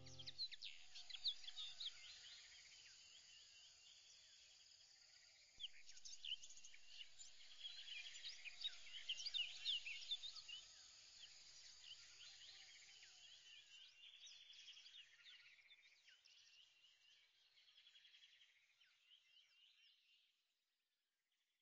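Faint birdsong: many small birds chirping and twittering at once, livelier in the middle stretch, then thinning and fading out shortly before the end.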